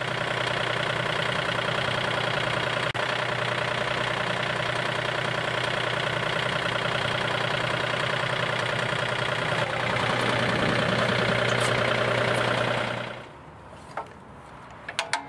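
John Deere 2032R compact tractor's diesel engine running steadily, then shut off about thirteen seconds in. A few sharp clicks follow as the hydraulic hose couplers are handled.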